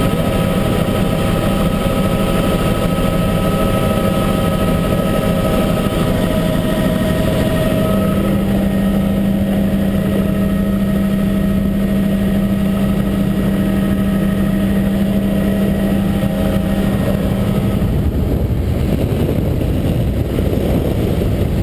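Helicopter engine and rotor noise heard from inside the cabin in flight: a loud, steady drone with sustained hum tones that shift slightly about eight seconds in and again near the end.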